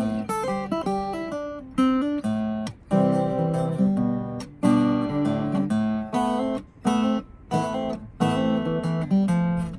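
Acoustic guitar being played, chords and single notes struck about once a second, each ringing out and fading before the next.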